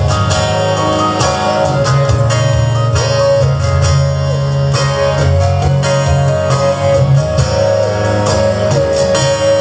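Acoustic guitar strummed in a steady, driving rhythm, playing an instrumental passage of a song with no singing.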